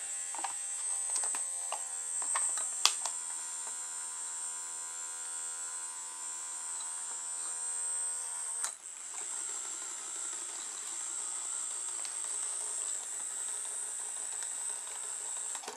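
Vibrating toothbrush's small electric motor, its offset weight removed, running with a steady high whine and buzz as it drives a toy car's wheel through a rubber band. A sharp click comes about three seconds in. About nine seconds in the tone turns rougher, and the sound drops away suddenly at the end.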